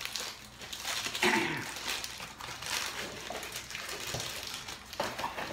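Rustling and crinkling of product wrapping as a bar of soap is unwrapped by hand, with a short vocal sound about a second in.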